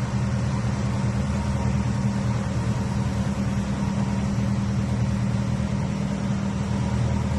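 A motor boat's engine running steadily at cruising speed, a constant low drone.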